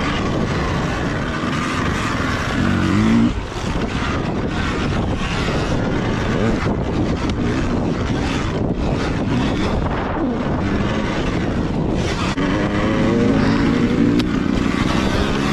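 Surron Ultra Bee electric dirt bike ridden fast over a dirt track: a steady rush of wind and tyre-and-chain noise over rough ground, with a pitched whine that rises and falls about three seconds in and again near the end.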